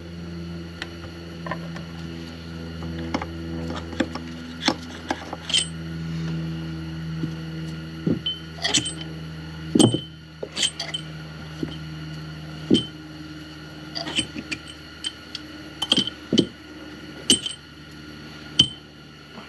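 Long steel through-bolts and metal parts of a hydraulic drive motor clinking and knocking as they are handled and set down, a string of sharp clinks at irregular intervals over a steady low hum.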